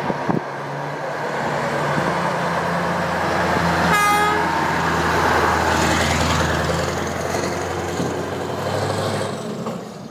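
A lorry's diesel engine and tyres as it passes close by, the engine swelling toward the middle, with a short horn toot about four seconds in.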